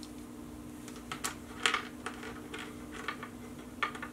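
Scattered light clicks and taps of small paracord beads and cord being handled and set down on a cutting mat, over a steady low hum.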